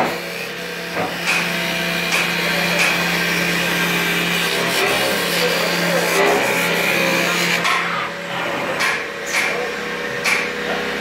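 Two-axis CNC wood lathe turning a wooden furniture leg: steady motor hum under the rasping of the cutting tool shaving the spinning blank. Several sharp knocks sound through it, most in the second half.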